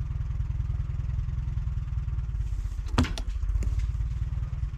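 Tractor engine running steadily under load as it pulls on a chained stump, with a sharp knock about three seconds in.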